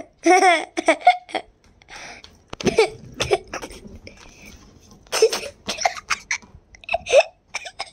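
A young child's excited shrieks and laughs in many short bursts, some of the cries high and wavering, with a few knocks of play.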